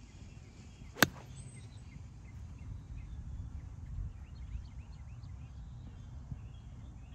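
A lob wedge striking a golf ball on a short approach shot: one sharp click about a second in. Afterwards birds chirp over a low wind rumble.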